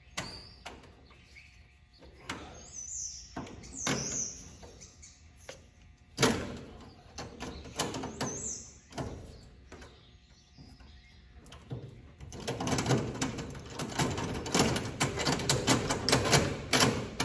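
Hand tools working on metal: scattered clicks and knocks with a few short high squeaks, then a dense run of rapid clicking over the last five seconds.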